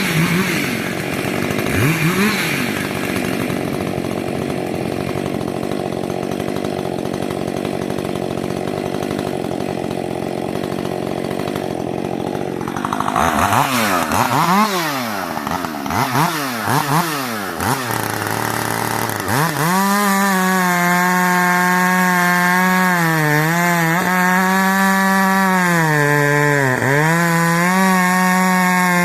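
Rebuilt Husqvarna 562 XP two-stroke chainsaw running: a steady engine sound for the first dozen seconds, then revved up and down several times in quick blips, then held at high revs with a steady high note that dips briefly twice.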